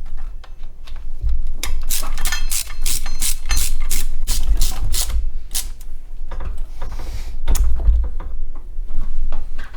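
Ratchet wrench clicking as the bolt of a freshly rebuilt double idler pulley on the drive belt is done up, a quick run of sharp clicks, about four a second, in the middle, with low knocking and handling noise around it.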